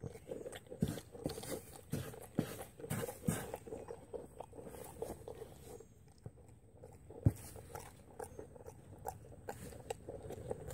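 Two-week-old miniature horse foal eating feed crushed into a crumble from a plastic feeder, with irregular crunching and chewing and small clicks as its muzzle works the feed. One louder knock about seven seconds in.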